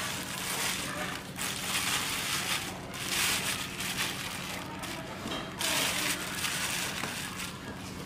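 Thin plastic bag crinkling and rustling as hands rummage in it, in four or five noisy bursts of about a second each.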